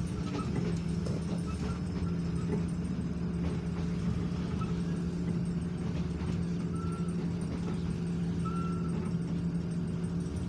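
Commuter train's steady low engine drone and running noise heard from inside the passenger coach, with a few short faint high squeaks in the second half.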